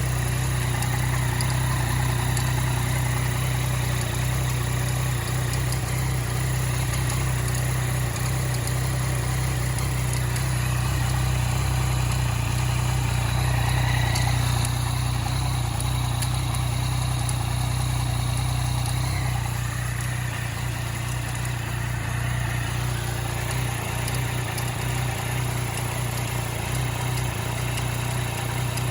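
2014 Yamaha MT-09's three-cylinder engine idling steadily, with the clicking noise that the owner takes as a sign that something is wrong with it.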